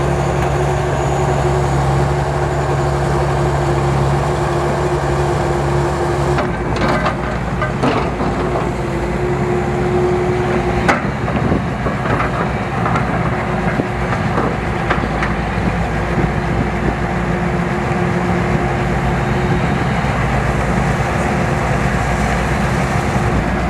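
Heavy construction machinery engine running steadily. Its low hum shifts about six seconds in, and scattered knocks and clanks follow through the middle.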